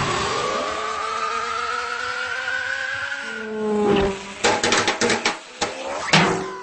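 Race-car engine sound effect revving up, its pitch rising steadily for about three seconds, followed by a run of sharp clicks and knocks from about four seconds in.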